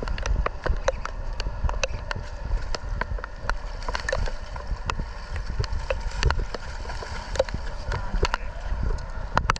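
Rain falling with scattered sharp ticks of drops hitting close to the microphone, several a second at uneven spacing, over a steady low rumble of wind and water.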